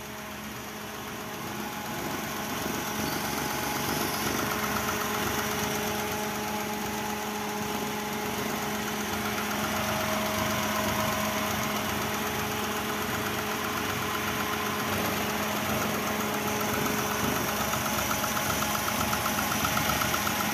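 Perodua Kancil's small three-cylinder petrol engine idling steadily.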